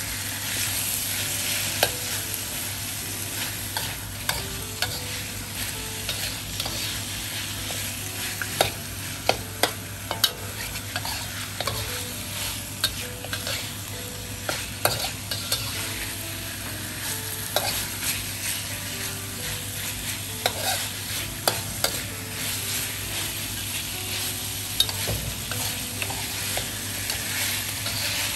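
Chunks of pork sizzling in curry paste in a wok while a spatula stirs and scrapes them, with frequent sharp taps of the spatula against the pan.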